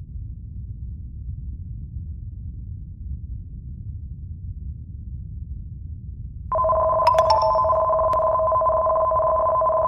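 Low, steady earthquake rumble sound effect; about six and a half seconds in, a loud steady two-tone alarm cuts in over it: the tsunami early-warning alert signalling that a tsunami warning has been issued.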